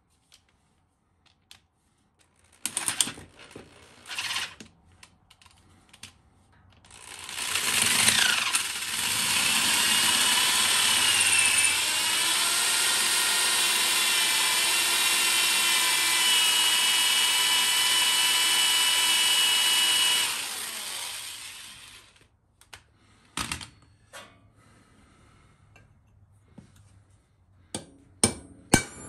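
Corded electric drill boring into the steel bearing retaining ring on a rear axle shaft. It spins up about seven seconds in, runs steadily with a constant whine for about thirteen seconds, then winds down. A few knocks come before it and a few hammer taps near the end.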